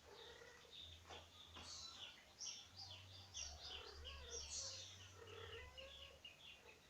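Kittens mewing faintly in a quick run of short, high chirping calls.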